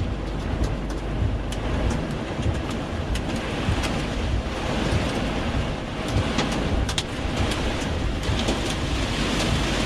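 Heavy storm rain beating on a moving vehicle's roof and windshield with scattered sharp ticks of hail, over low engine and road rumble, heard from inside the cabin.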